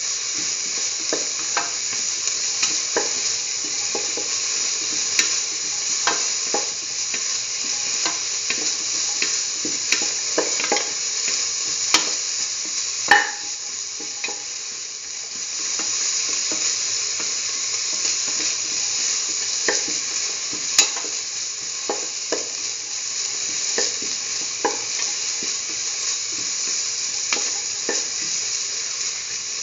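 Chopped onion sizzling as it fries in hot oil in a pan, with a spatula scraping and tapping against the pan every second or so as it is stirred; a couple of sharper knocks stand out in the middle.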